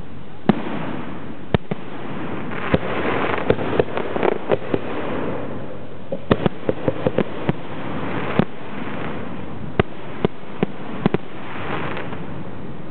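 Aerial fireworks shells bursting in a Zambelli display: about twenty sharp booms, several in quick runs of four or five around the middle, over a steady rushing noise that swells and fades several times.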